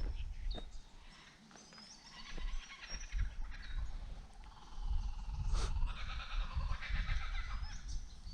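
Laughing kookaburras calling: a rapid, repeating chatter that builds from about two seconds in and grows fuller toward the end, with thin chirps from small birds above it.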